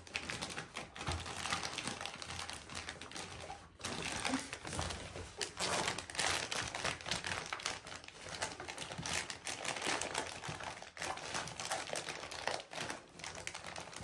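Rustling and crinkling of bags and pouches as items are packed into a travel bag, mixed with many light, irregular clicks and knocks.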